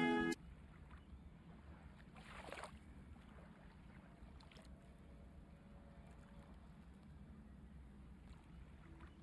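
A faint low hum with one soft swish about two seconds in, from a paintbrush of poster colour stroked across paper.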